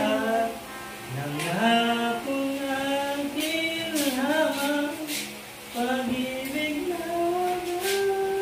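A person singing a slow melody in long held notes, with short breaks between phrases about a second in and at about five and a half seconds.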